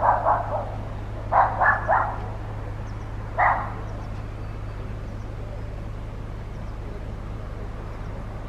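A dog barking in three short bouts: a quick run of about four barks, three more about a second later, then a single bark three and a half seconds in, over a steady low hum.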